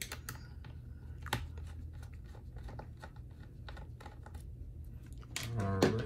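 Scattered light clicks and ticks of a screwdriver turning out the last base-cover screws of a Dell Inspiron 15 7000 laptop, with one sharper click about a second and a half in.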